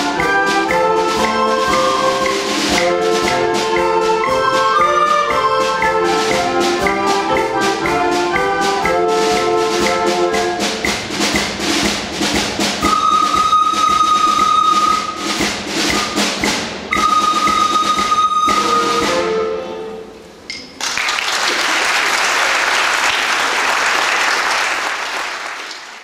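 Children's recorder ensemble playing a lively piece over steady percussion ticks, with two long held high notes near the end of the music. The music stops about 20 seconds in, and audience applause follows.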